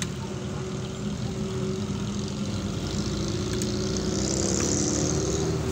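Off-road tour jeep's engine running as it drives along a dirt forest track, heard from aboard the open vehicle; it grows louder and its pitch rises a little past the middle, with a brief hiss near the end.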